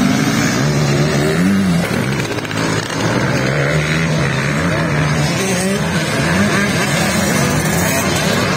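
Several motocross bikes racing on a dirt track, their engines revving up and down as the riders accelerate through turns and over jumps. The engine note wavers continuously in pitch, with a brief lull about two to three seconds in.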